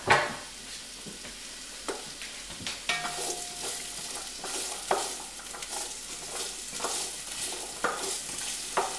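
Diced carrots sizzling as they sauté in a cast-iron pot, stirred with a wooden spoon that scrapes and knocks against the pot every second or two. A sharp knock right at the start is the loudest sound.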